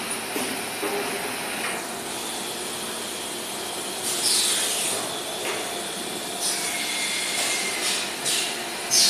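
Semi-automatic plastic bagging machine running with a steady mechanical hum, with several short hisses in the second half.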